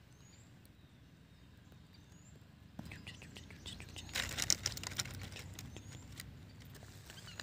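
Dry fallen leaves crackling and rustling close by from about three seconds in, loudest around four to five seconds in. A bird gives a faint, short rising chirp about every two seconds.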